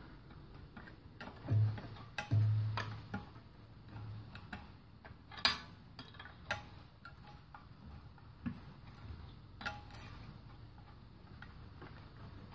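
Open-end wrench and a nut welded onto a snapped bolt, clicking now and then as the wrench is worked back and forth to ease the seized bolt out of the aluminum engine block. Irregular light metallic clicks, with a low hum in the first few seconds.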